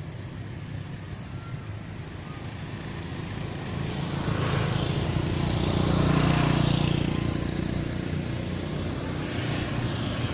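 A motor vehicle passing by over steady background noise, growing louder to a peak about six seconds in and then fading away.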